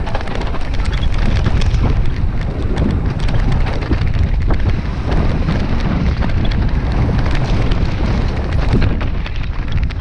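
Mountain bike riding fast down a rough downhill trail: steady wind rush on the microphone and rumbling tyres, with frequent sharp clicks and rattles from the bike over the terrain.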